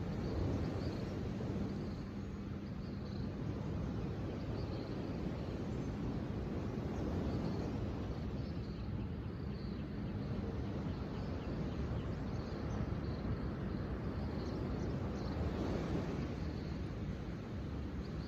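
Steady outdoor nature ambience: a constant low rumbling noise with faint high chirps throughout.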